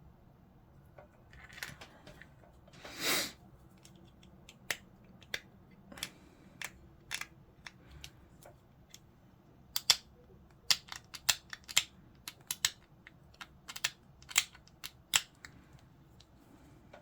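Sharp, irregular clicks of plastic miniature parts being snipped off the sprue with hobby clippers, coming several a second in the second half, with a short scrape about three seconds in.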